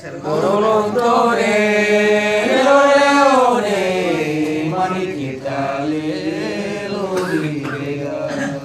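Men singing a Manggarai dere, a traditional song from Flores, in a chanting style with long held notes that bend in pitch.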